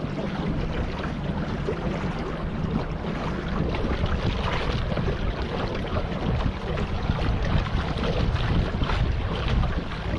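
Small boat under way, its motor running steadily under heavy wind buffeting on the microphone.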